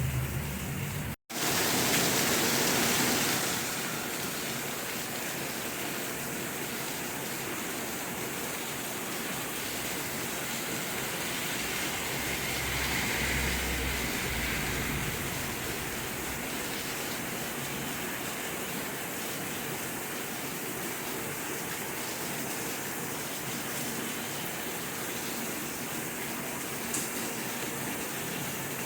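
Steady rain falling, an even hiss with no distinct drops standing out. It cuts out for an instant about a second in and comes back a little louder for a couple of seconds.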